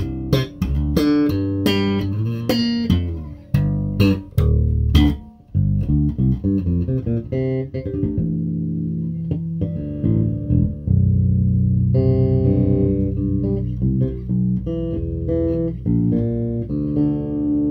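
TUNE SWV-6 six-string electric bass with a monkey pod top, played solo. The first five seconds or so are sharp, percussive attacks; after that come fingerstyle plucked notes and chords that ring on.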